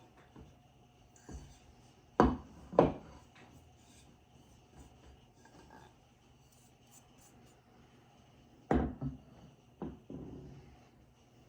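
Kitchen work sounds: kitchenware knocking and clattering, two sharp knocks about two seconds in and another cluster near nine to ten seconds, with faint rubbing between.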